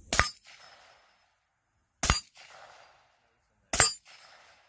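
Three gunshots about two seconds apart, each a sharp crack followed by a short, fainter ringing tail.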